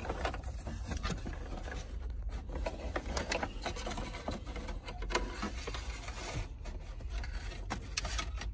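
Wires and cables being tucked into the empty stereo opening of a Chevrolet Silverado's plastic dash: irregular light scrapes, rustles and clicks as the cables and plastic parts are handled.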